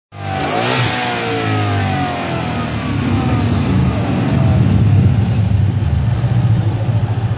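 Twin-turbocharged 5.0-litre V8 of a 2015 Ford Mustang GT being revved: the revs fall away over the first second or two, then the engine settles into a steady, choppy idle.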